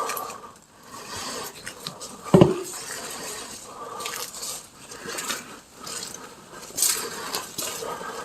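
Scattered clinks and knocks, with one loud ringing knock about two and a half seconds in.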